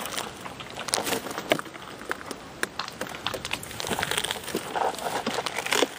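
Tall grass and leafy brush rustling and crackling against a gun and body pushing through it, with many irregular small snaps.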